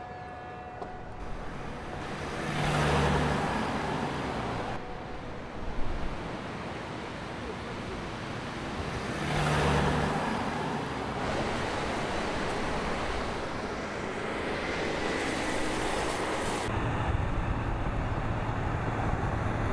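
Car and road noise that swells twice, about three and ten seconds in, each time with a low engine tone, then settles into a steady rumble with a low hum. A brief thump comes about six seconds in.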